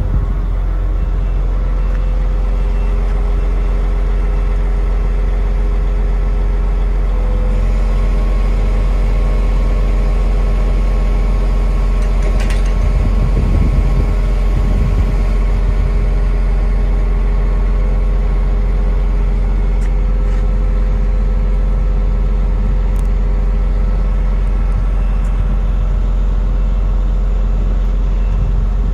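Truck engine and hydraulic pump running at a steady speed, powering a Fassi F660XP knuckle-boom crane as its boom and jib unfold: a steady drone with a level hum, and a short clunk about twelve seconds in.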